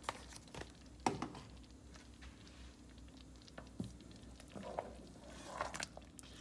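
A black spoon stirring thick, creamy chicken gnocchi soup in a stainless steel pot: soft squishing and pattering, with a sharp knock about a second in and a few lighter clicks later.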